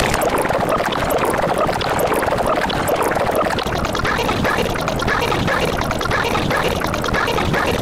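A dense, jumbled din of many soundtracks layered over one another, blurring into a steady, loud wash of noise with no clear voice or tune standing out.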